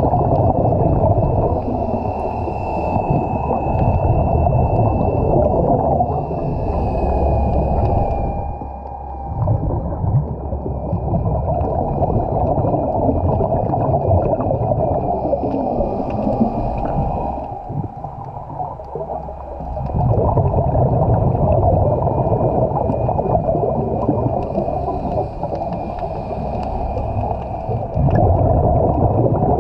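Boat engine and propeller heard underwater: a steady low rumble with a thin high whine over it, dropping away briefly twice.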